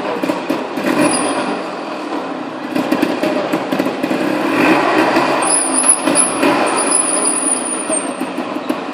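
Trial motorcycle engine running with uneven revs, rising and falling as the rider manoeuvres the bike.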